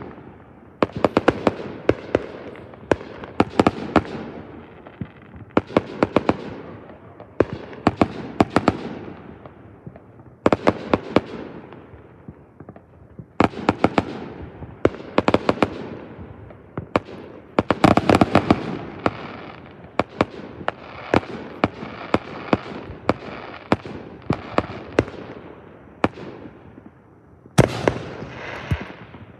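Aerial fireworks shells bursting in quick volleys of sharp bangs, a new volley every couple of seconds, each trailing off in a long echo. A short lull comes near the end before another volley.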